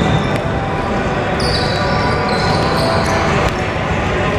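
Basketball dribbled on a hardwood gym floor during a full-court run. From about a second and a half in come several short high squeaks of sneakers on the wood.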